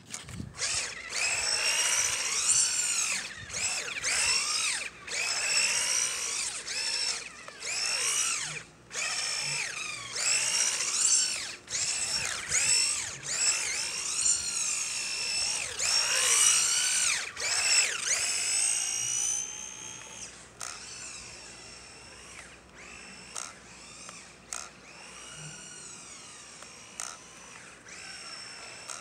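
Electric motor and gears of a Tamiya Grasshopper RC buggy whining as the throttle is worked, the pitch rising and falling over and over with brief cut-offs. From about two-thirds of the way in it goes on much fainter.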